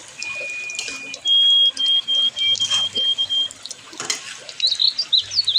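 Chicken liver, gizzard and intestines sizzling in spice paste in a wok as a metal spatula stirs them. Over it, a high held tone in the first second, then a run of short high beeps at one pitch, then bird chirps near the end.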